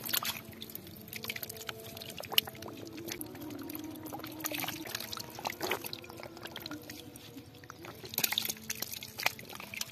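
Catfish thrashing and wriggling in shallow muddy water, with water trickling and sloshing throughout. There are sharp splashes here and there, one loud one about two and a half seconds in and a cluster near the end.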